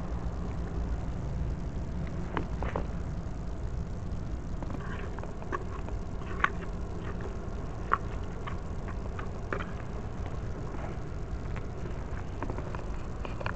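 Outdoor harbour ambience: a steady low rumble with scattered light clicks and knocks, two of them sharper about six and a half and eight seconds in.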